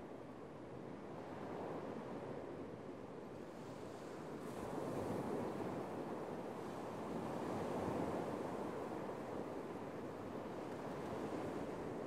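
Small surf breaking and washing up a sandy beach in a steady rush that swells louder about five and again eight seconds in.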